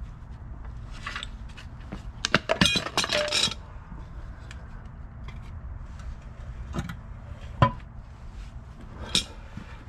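Metal clamps and hand tools clinking and clanking against each other and the concrete as they are handled and set down: a quick run of ringing clinks about two to three and a half seconds in, then a few single sharp knocks, one near eight seconds and one near nine.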